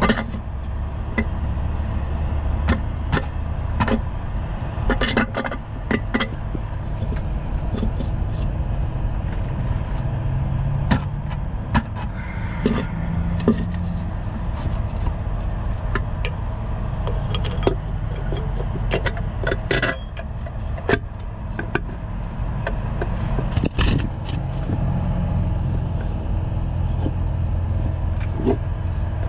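A steady low engine drone under scattered short clicks, taps and scrapes of metal parts being handled as a bolt is threaded into a truck air-suspension bag by hand.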